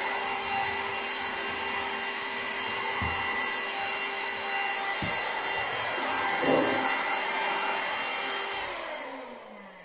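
Handheld vacuum cleaner running steadily with a motor whine, then switched off near the end, its motor winding down in a falling pitch.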